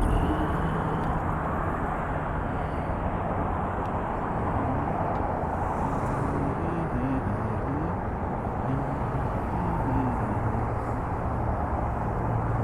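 Steady outdoor vehicle noise: engines running and shifting pitch over a constant background hum.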